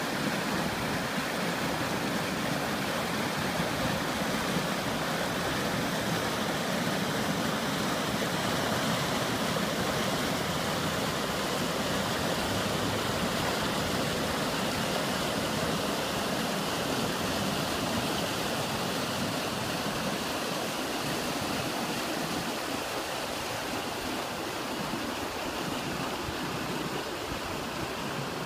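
Mountain creek rapids rushing over rocks: a steady rush of whitewater that eases slightly near the end.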